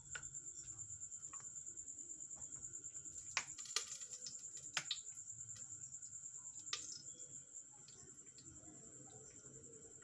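A faint, steady, high-pitched pulsing trill, with a few sharp clicks and taps about three to five seconds in and again near seven seconds as an oil bottle is handled over an aluminium pressure cooker.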